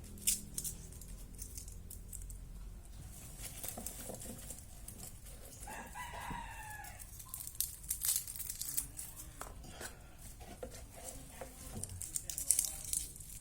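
A rooster crows once, about six seconds in, over scattered light clicks and rustles.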